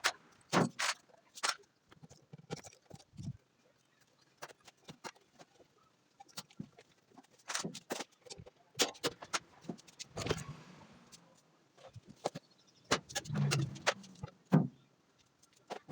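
Irregular sharp clicks, knocks and clatter of hand tools and washing-machine parts being handled during disassembly, with a few heavier thuds near the middle and toward the end.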